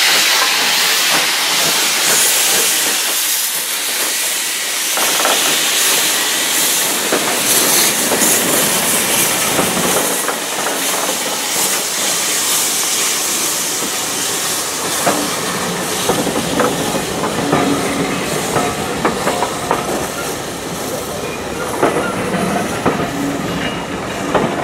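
Steam train passing close by: steam hissing from the locomotive for the first few seconds, then the coaches rolling past with their wheels clacking over the rail joints.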